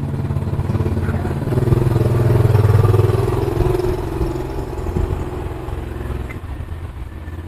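A motor vehicle's engine running past: it grows louder about a second and a half in, peaks around three seconds and then fades. A few light knife taps on the wooden chopping board can be heard under it.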